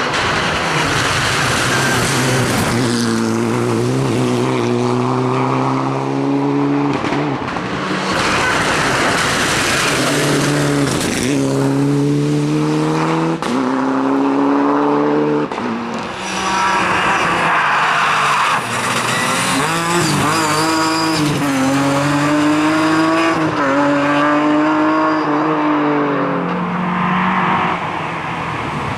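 Rally cars at racing speed: engines revving hard, their pitch climbing and dropping back again and again as they shift up through the gears, with tyres squealing.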